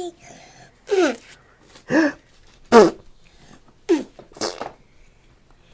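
A toddler making short, breathy vocal sound effects: five quick bursts, each dropping in pitch, with pauses between them.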